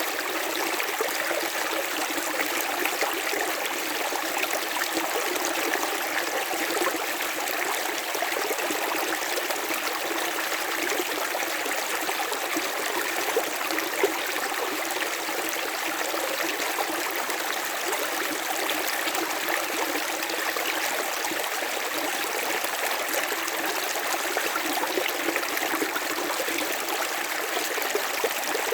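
A river or stream running steadily over rocks, a continuous even rush of flowing water with small splashes and burbles.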